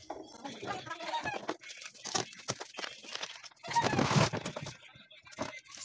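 Knocks and scrapes of a plastic spin-dryer cabinet being handled and tipped over on a concrete floor, loudest about four seconds in.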